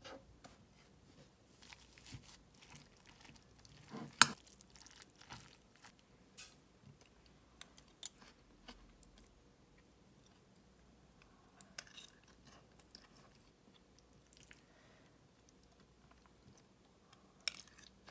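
Metal spoon mixing sauced food in a ceramic bowl: soft squishing of the food, with scattered clinks and scrapes of the spoon against the bowl, the sharpest about four seconds in and another near the end.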